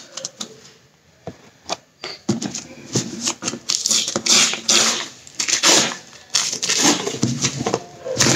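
Hands handling a cardboard shipping carton: scattered taps and scratches at the packing tape, then repeated scraping and rustling of the cardboard from about two seconds in as the box is turned over.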